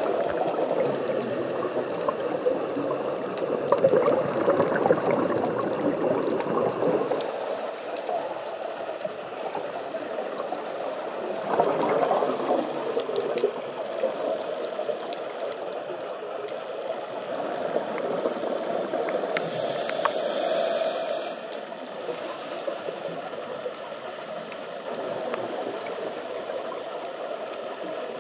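A scuba diver breathing through a regulator, heard through a camera's underwater housing. Several-second rushes of exhaled bubbles alternate with short, high hisses of inhaling, over a steady underwater hiss.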